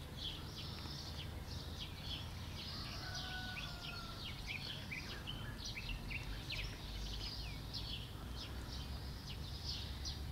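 Many small birds chirping busily in quick, irregular short notes over a steady low background rumble.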